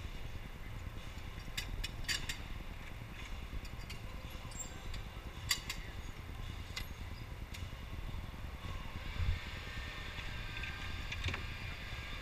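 A few sharp clicks and clatter as a go-kart's seat belt and fittings are handled and fastened, over a steady low rumble, with a faint higher hiss building in the last few seconds.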